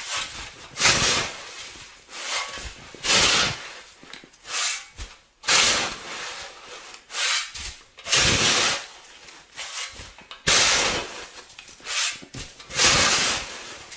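Snow shovel scraping through snow in repeated strokes. The loudest strokes come about every two and a half seconds, with smaller scrapes between them.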